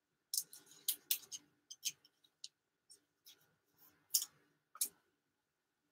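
Light, irregular clicks and taps, about eight in all, of hockey cards being handled, shuffled and set down by gloved hands.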